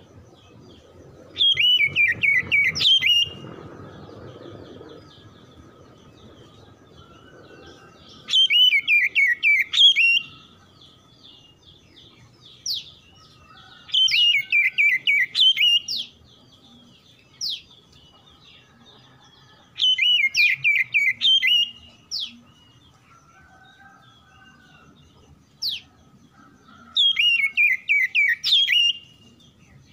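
Oriental magpie-robin singing: five loud phrases about every six seconds, each a quick run of whistled notes falling in pitch, with single short notes between the phrases.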